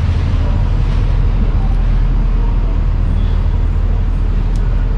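Steady low rumble of city street traffic, even and unbroken.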